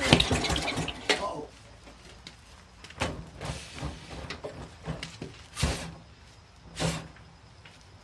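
A loud burst with some pitched sound in the first second and a half, then a cloth rag wiping down a Craftsman push mower's engine in several short, separate swipes a second or more apart.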